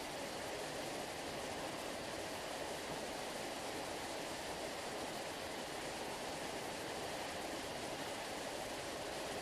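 Sea water rushing in a steady, even hiss like a waterfall, with no rise and fall of separate waves.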